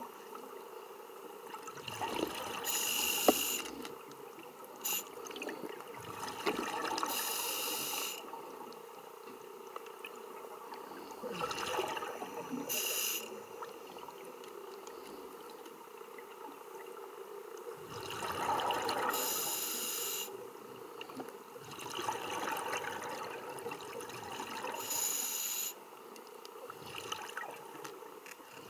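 Scuba diver breathing through a regulator underwater: hissing, bubbling breaths come roughly every five to six seconds. A single sharp click about three seconds in.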